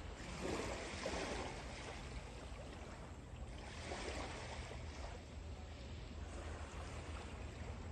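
Small waves washing on a pebble shore, the hiss swelling a few times, over a low rumble of wind on the microphone.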